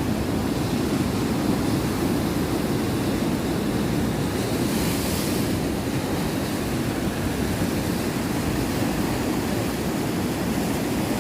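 Sea surf washing on the shore: a steady rushing noise, with a brighter hiss for about a second near the middle as a wave breaks.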